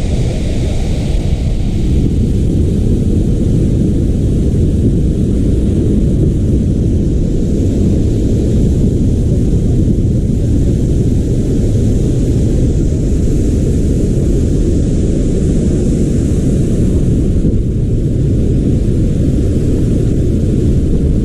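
Athirappilly waterfall roaring steadily and loudly, mostly a deep rumble with a thinner hiss of spray above it.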